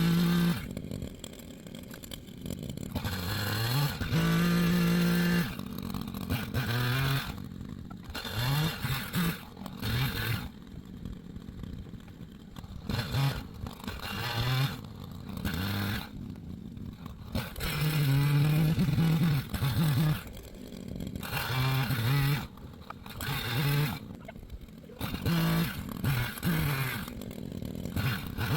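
Echo CS-590 Timberwolf two-stroke chainsaw cutting wood, its engine revving up in repeated bursts with rising pitch and dropping back to a lower speed between them.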